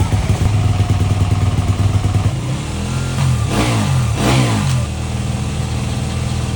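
Motocross bike engine running, its pitch rising and falling twice near the middle before settling back to a steady note.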